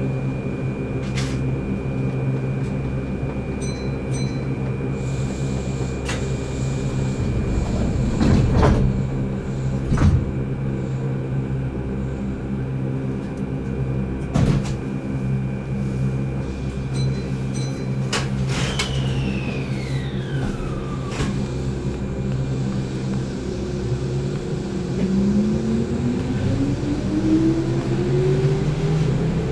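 Keihan 8000-series electric train standing at a platform with its equipment humming, as the doors shut with a few knocks. From about two-thirds of the way through, the DC traction motors start up with a rising whine as the train pulls away.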